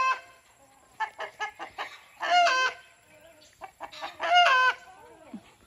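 A chicken cackling: a quick run of short clucks building into a long, loud squawk that drops in pitch at its end, twice, the pattern of the egg song.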